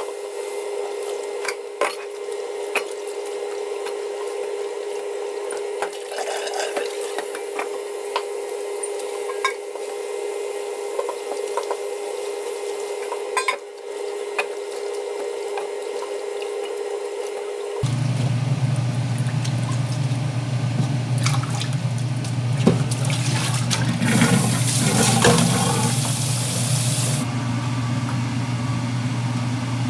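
Kitchen tap running into a stainless steel sink and a metal bowl of bamboo shoots, with scattered clinks of metal bowls. About 18 seconds in the sound changes abruptly to a steady low hum with pots and a lid clattering.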